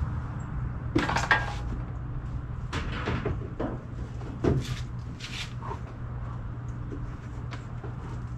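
Plastic car front-end parts being fitted by hand around the headlight: a string of separate knocks, clicks and clatters, the loudest about a second in and again about four and a half seconds in, over a steady low hum.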